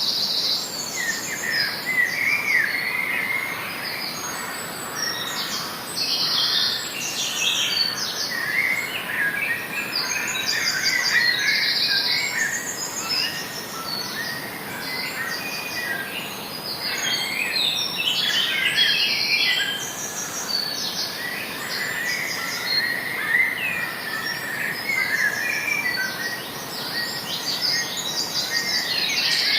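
Wild birds chirping and calling again and again, with short, high, pulsing trills coming one after another throughout.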